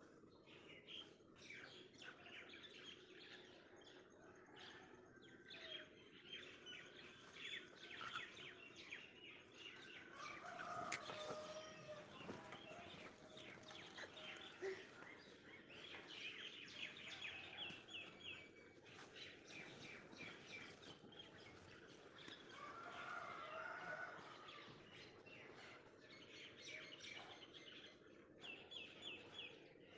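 Faint birdsong: small birds chirping and twittering throughout, with quick trilled phrases now and then.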